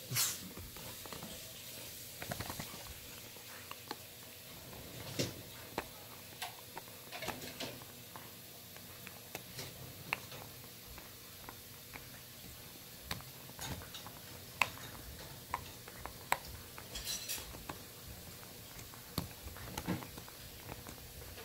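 Dog gnawing a hard chew bone: irregular sharp clicks and scrapes of teeth on the bone, with short louder clusters now and then.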